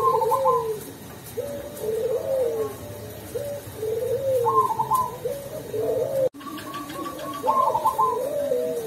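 Zebra dove (perkutut), the black cemani variety, cooing its rolling, repeated song phrase after phrase, about one a second with short gaps. The sound cuts out briefly a little after six seconds.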